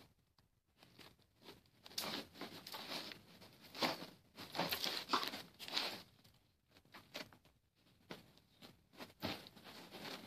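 A German Shepherd and a kitten wrestling on a bed, with the comforter rustling and scuffling under them. The sound comes in irregular bursts with short pauses between.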